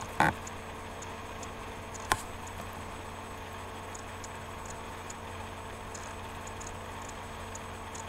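Steady low hum with a couple of sharp clicks, one just after the start and one about two seconds in, and faint light ticking.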